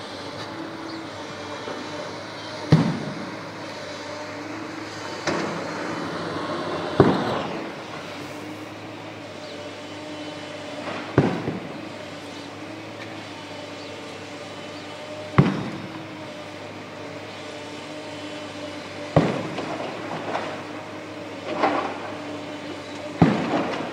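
Tracked excavators' diesel engines running steadily under load while they break up a concrete canopy, with about eight heavy, ringing strikes of steel on concrete a few seconds apart.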